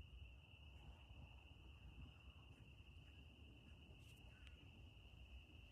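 A faint, steady, high-pitched drone from a chorus of small animals, unbroken, which the uploader wonders may be frogs; a low background rumble lies beneath it.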